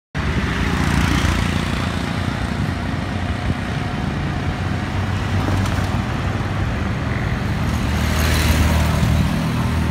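Steady engine drone and road noise from riding in a moving vehicle along a street with traffic.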